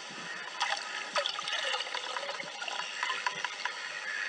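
Water churning and splashing, with scattered crackling clicks, from a ceiling fan spinning while submerged in water.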